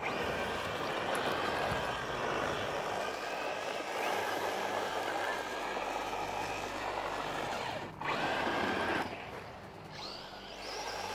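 Losi Promoto MX 1/4-scale electric RC dirt bike running on sand: the brushless motor whining and the rear tyre spraying sand and dust. The sound cuts off sharply about eight seconds in and comes back, then drops lower.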